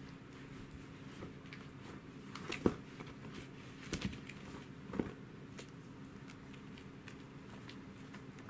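A Welsh corgi puppy chewing and mouthing a fabric toy with a rope rim: faint scattered clicks and rustles, with three sharper knocks about two and a half, four and five seconds in.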